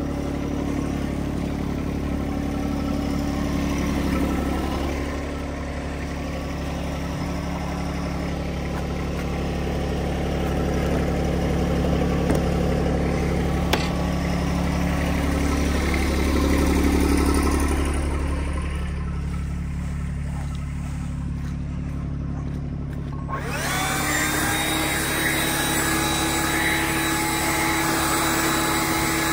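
Tractor engine running steadily while working the loader and box blade. Near the end a higher, whining tone comes in and rises briefly before levelling off.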